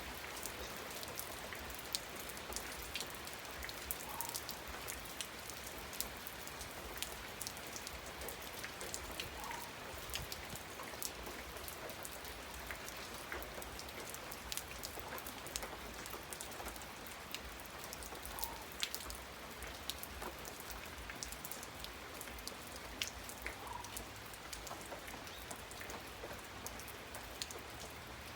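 Steady rain falling, with many separate drops striking sharply on a surface.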